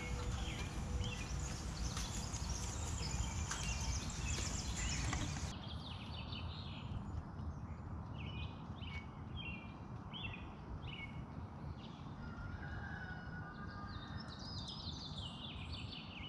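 A goat pulling and chewing hay at a feeder right against the microphone, with lots of crackling clicks. About five seconds in, this cuts to outdoor ambience with small birds chirping repeatedly.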